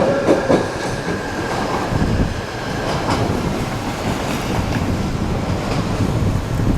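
Odakyu Line train passing over the level crossing: wheels rumbling and clacking over the rail joints. A steady high squeal or tone carried over from just before dies away about half a second in.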